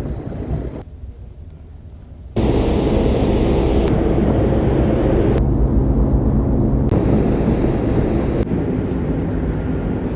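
Ship's engine running with a steady low drone, starting abruptly about two seconds in after a short stretch of quieter wind noise.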